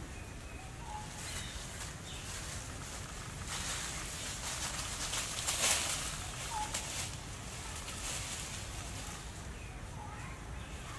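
Dry leaf litter rustling and crackling under young monkeys moving through it. The rustle swells in the middle and is loudest just before halfway, with a few short high chirps of birds in the background.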